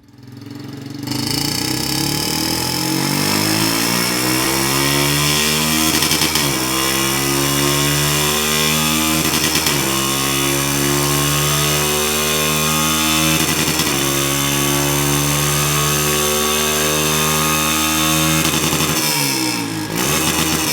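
Honda CG Titan 160's single-cylinder four-stroke engine running through a Roncar Turbo aftermarket sport exhaust, held steady at a raised idle. The pitch dips briefly three times, and near the end the revs drop and are blipped up again a couple of times.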